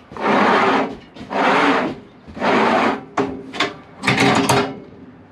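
Razor-knife slitter on a sheet-metal brake scoring white aluminum trim coil: four rasping scrapes of about a second each, then a few shorter, quicker ones.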